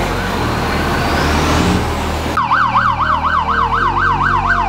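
A rushing noise with a faint rising whine. About two and a half seconds in, an electronic vehicle siren cuts in sharply, yelping rapidly up and down about four times a second over a steady low engine rumble.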